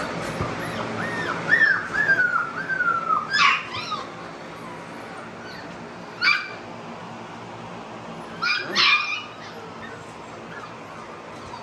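American bully puppies whining and yelping. A string of high, falling whines comes in the first few seconds, then short sharp yelps: one about three and a half seconds in, one about six seconds in, and two close together near nine seconds.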